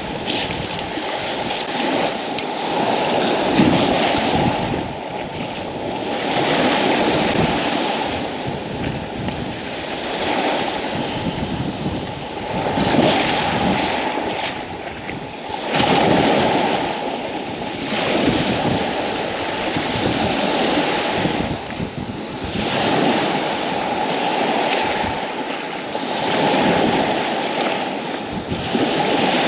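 Small waves washing up onto a pebble shore, each wash swelling and fading every two to three seconds.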